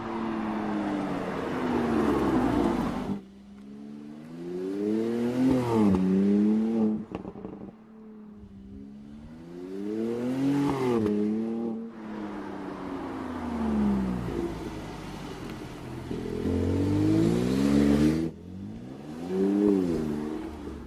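Mercedes-AMG SLC43's twin-turbo V6 engine revving repeatedly, its pitch climbing and falling, with sudden drops in sound each time the throttle is lifted, about three times.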